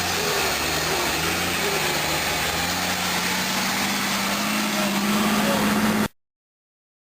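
A vehicle engine running steadily, its low tone rising slightly in pitch from about three seconds in as it is given a little throttle. The sound cuts off abruptly about six seconds in.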